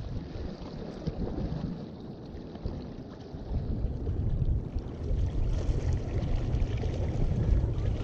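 Wind buffeting the microphone in a low, fluctuating rumble over the wash of sea water against jetty rocks. It eases a couple of seconds in and gusts up again about four seconds in.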